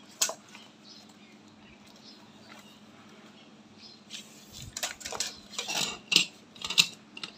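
Light metallic clicks and clatter from a safety-harness lanyard and its metal hook being handled and stretched out to measure. There is one click right at the start, a quiet stretch, then a run of sharp clicks over the last three seconds.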